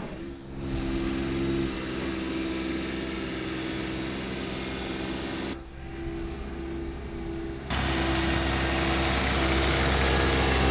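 Toro Dingo TX 1000 compact utility loader's engine running loud at a steady speed. It gets louder and deeper for the last few seconds as the machine drives up close.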